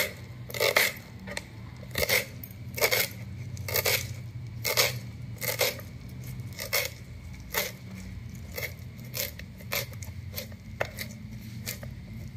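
Kitchen knife chopping fresh coriander on a plastic cutting board: a steady run of sharp knocks of the blade on the board, coming faster in the second half.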